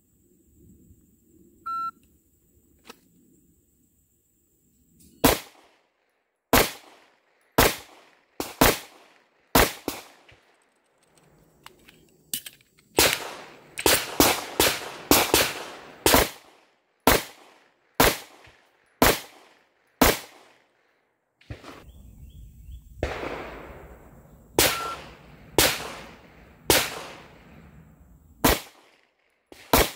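Pistol gunfire: after a few quiet seconds and a short beep about two seconds in, sharp shots begin about five seconds in. They come as irregular single shots and quick strings, about two dozen in all, with a dense run of rapid shots near the middle.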